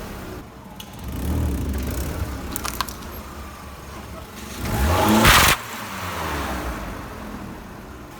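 Car engine revving in two swells, the louder one rising in pitch and cutting off sharply, with a few short sharp cracks between them.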